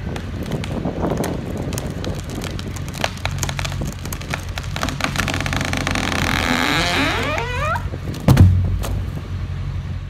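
A large tree, cut through at the base, falls: wood cracks and creaks as the hinge gives way, with a rising groan just before it goes, then a heavy thud as the trunk hits the ground about eight seconds in. A machine engine runs steadily underneath.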